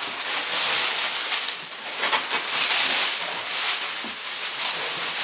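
Thick plastic vacuum-packing wrap crinkling and rustling as it is pulled and cut away from a compressed foam mattress. The sound swells and eases in irregular surges.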